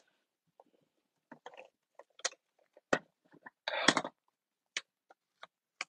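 Paper and cardstock handled on a work surface: scattered light rustles, taps and clicks, with a longer, louder rustle about four seconds in.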